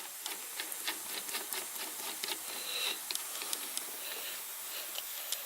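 Scattered light clicks and rubbing of hands fitting shifter parts back into a Mazda Miata's console.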